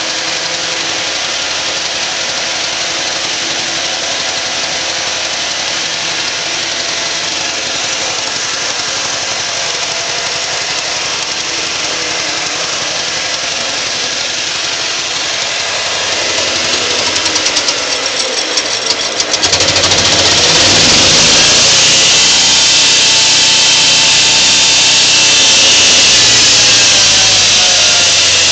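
Wood chipper driven by a 6.5 HP Predator single-cylinder engine running steadily; about two-thirds of the way through it breaks into a rapid rattling, then runs louder and harsher.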